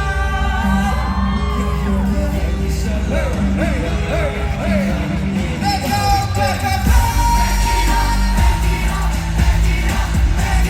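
Loud live K-pop music with singing over a heavy bass beat.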